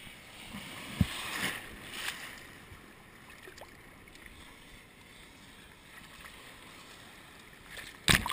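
Shallow sea water sloshing around an action camera held at the surface, muffled while the camera is dipped under, with a sharp knock about a second in and a loud splash near the end.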